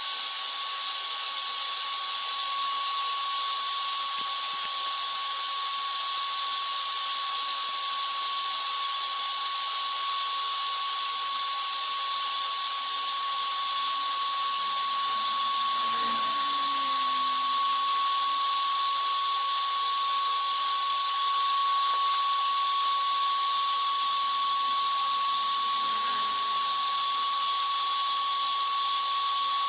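Heat gun running steadily on its stronger setting: a constant high whine over a strong rush of hissing air.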